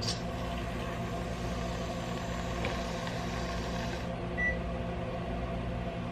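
Microwave oven running with a steady hum and hiss; the hiss stops about four seconds in and a single short electronic beep follows, the sign of the reheat cycle ending.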